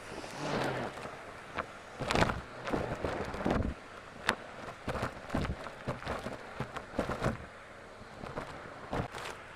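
Henry vacuum cleaner sucking up dirt, with a rushing noise and frequent irregular clicks and cracks as grit and debris rattle through the nozzle and hose.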